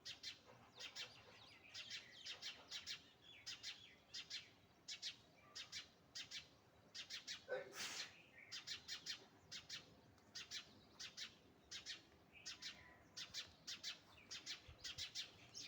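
Small birds chirping: faint, short, high chirps in quick runs, with one louder, lower call about halfway through.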